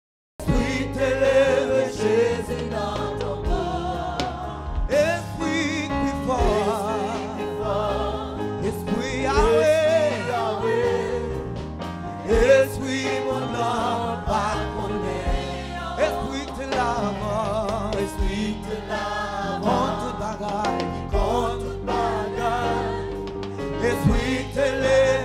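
Gospel worship singing: a man leads at the microphone with a group of backing singers joining in. The music cuts in abruptly just after the start, out of silence, and then carries on at a steady level.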